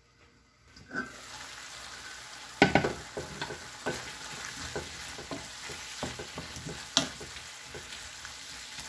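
Sliced chayote squash sizzling in a frying pan while a wooden spatula stirs it, scraping and knocking against the pan. The sizzle starts about a second in, and the loudest scrape comes a little before three seconds.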